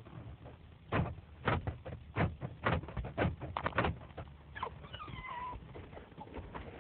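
A dog making duck-like quacking noises: a quick run of about ten short, loud quacks, then a longer, higher call that bends in pitch.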